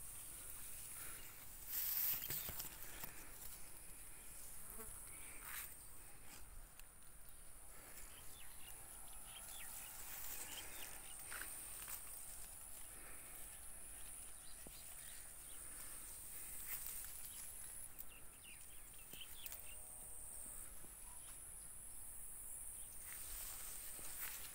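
Steady high-pitched trill of insects in the orange trees, with a brief louder rustle about two seconds in.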